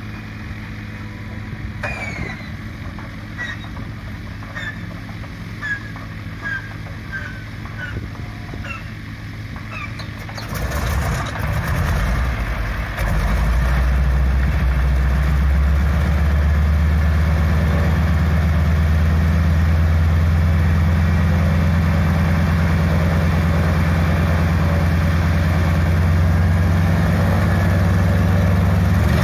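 PZL M-18B Dromader's nine-cylinder radial engine, a steady low hum at first. About ten seconds in it turns rough and uneven, then from about thirteen seconds it runs steadily and much louder as it comes up to power for takeoff.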